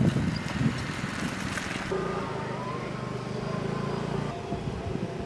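Road traffic: a motor vehicle's engine running, a steady hum that fades a little near the end.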